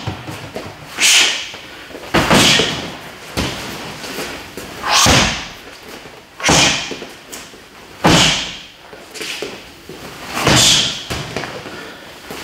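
A man shadowboxing with punches and kicks: about eight sharp hissing swooshes, one with each strike every second or two, some of them starting with a thud.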